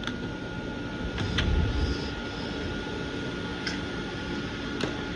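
Electric fans running on high, a steady rush of moving air with a faint thin motor whine, and a few light clicks.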